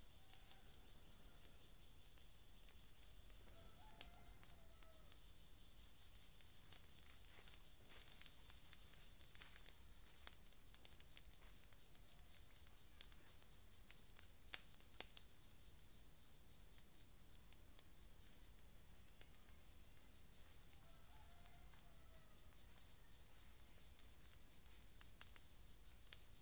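Near silence with faint, scattered crackles and clicks, thickest in the middle, and a faint bird call twice.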